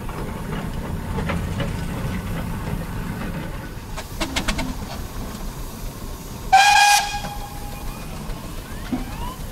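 A short, loud steam whistle blast about two-thirds of the way in, over the low running of a steam roller moving off.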